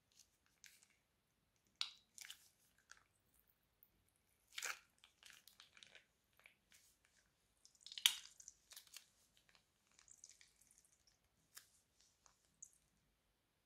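Crunchy slime squeezed out of a plastic piping bag: soft, irregular crackling and squishing. The loudest crackles come about two, four and a half and eight seconds in.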